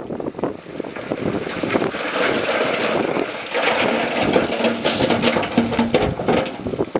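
Bulldozer at work: its diesel engine running with rocks and steel clattering throughout, and an engine hum showing through in the middle.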